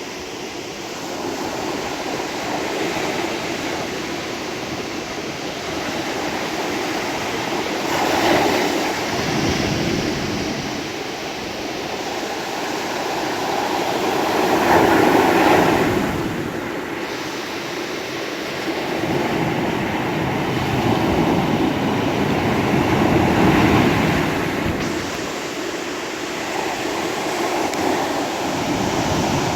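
Sea waves breaking and washing on the shore, a steady rush that swells louder three times, loudest about halfway through.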